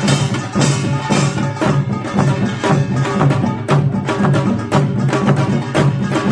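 Samul nori ensemble playing a fast, dense rhythm: the small kkwaenggwari gong clanging over janggu hourglass drum and buk barrel drum strokes, several strikes a second.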